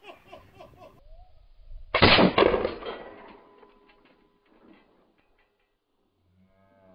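A man's voice for about the first second, then about two seconds in a single loud bang from a Firebird exploding target being set off, echoing away over about a second.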